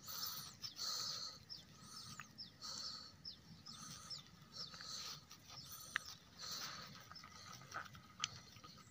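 Faint, high-pitched animal chirping calls repeating every half second to a second, with a couple of sharp clicks later on.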